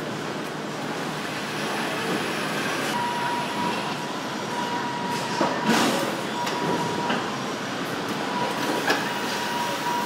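Car assembly-plant floor noise: a steady machinery din with a few metal clanks, and an electronic beep tone sounding on and off from about three seconds in.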